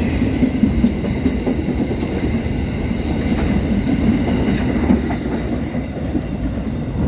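Loaded freight train wagons rolling past, a steady rumble of steel wheels on rail with faint clicks over the rail joints, easing slightly near the end.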